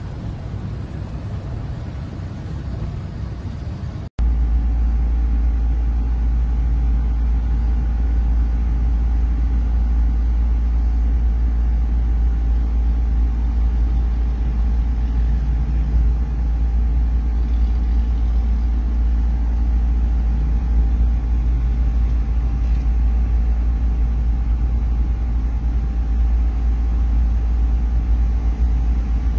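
Steady low rumble of a car driving, heard from inside the cabin. About four seconds in it cuts to a louder, deeper steady rumble.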